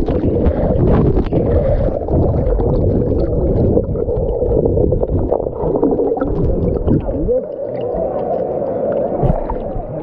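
Water churning and gurgling over an action camera's microphone as the camera is swept under the surface and back up in a pool, the sound muffled and dull. It is the sound of someone thrashing in water over their depth.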